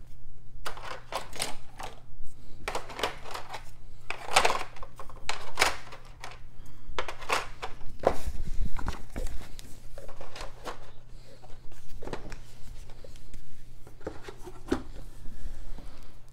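Hard plastic miniature sprues being handled and set down on a tabletop: irregular clicks, rattles and clatter, over a steady low hum.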